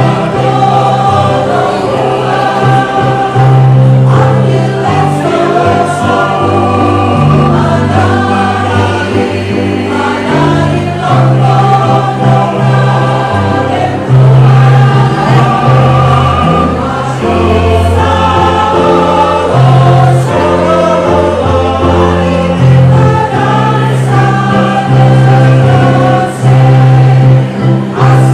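Amateur choir singing in parts, accompanied by an electronic keyboard holding steady low notes that change every second or two.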